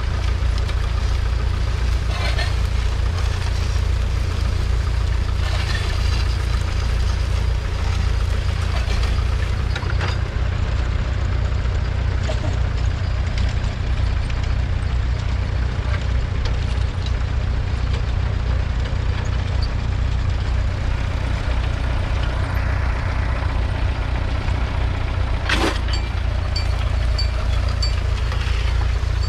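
1968 International Harvester B275's 2.3-litre four-cylinder diesel engine running steadily under load, pulling a two-furrow trailed plough through the soil. A single sharp knock sounds near the end.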